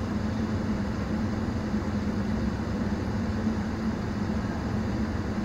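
Steady low mechanical hum with an even rushing noise, unchanging throughout.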